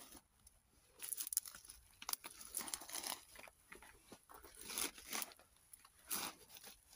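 Dry grass and bramble stems crackling and rustling in irregular bursts as someone pushes through them.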